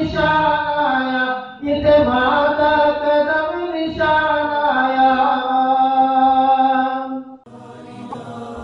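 A man chanting a Saraiki devotional poem (nazm) unaccompanied, in long held melodic notes with short breaths between phrases. A little over seven seconds in the voice stops abruptly and quieter music takes over.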